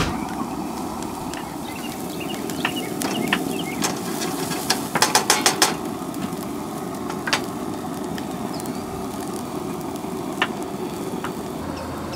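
Lamb's quarters greens frying in a hot sauté pan with onions, a steady sizzling hiss. Scattered clicks, with a quick run of about seven around five seconds in.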